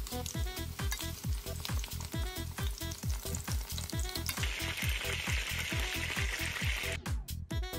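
Chicken wings frying in hot oil in a cast-iron skillet, a steady sizzle that grows louder about four seconds in and drops away near the end, over background music with a steady thumping beat.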